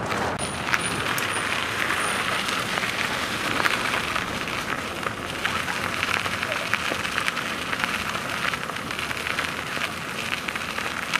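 Bicycle tyres rolling along a dirt trail: a steady crackling hiss of grit under the wheels, with many small clicks.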